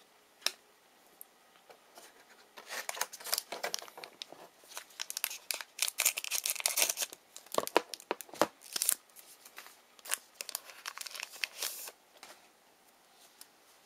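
A basketball trading-card pack's wrapper being torn open and crinkled: a dense run of crackling tears and rustles lasting several seconds, after a single sharp tick near the start.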